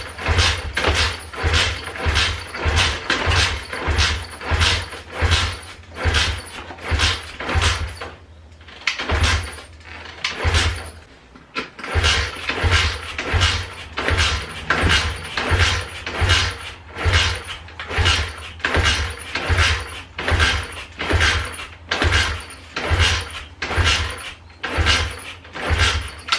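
Turbocharged Loncin pit bike engine being kick-started over and over, about once a second with two short pauses. Each kick turns the engine over with a thud and a rush of air, but it does not fire; the owner blames a clogged carburettor.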